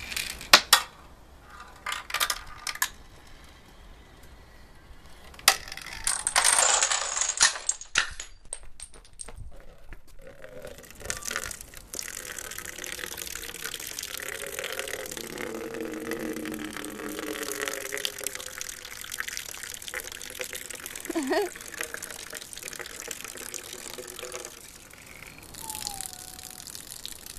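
Objects in a homemade Rube Goldberg machine knocking and falling: several sharp clacks in the first few seconds, a loud hiss about six seconds in, then a steady rushing noise.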